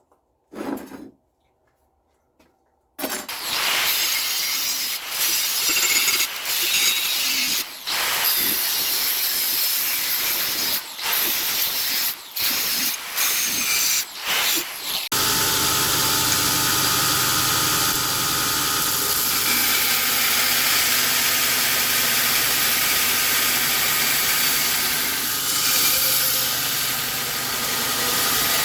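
Power tools working steel: a loud hissing grind in a series of short runs with brief breaks, then from about halfway one continuous run with a steady hum under the hiss.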